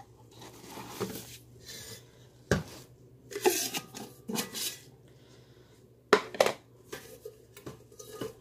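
Stainless steel camp cookware being handled, a pot with fold-out handles: irregular metal knocks and clinks, the sharpest about two and a half seconds in and twice about six seconds in, with rubbing and rustling between.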